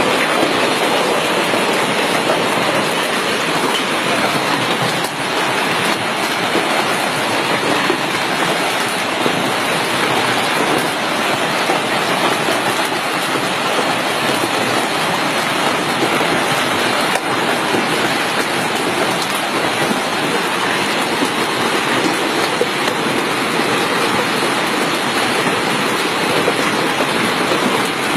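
Heavy hailstorm: a dense, unbroken clatter of hailstones pelting down on hard surfaces.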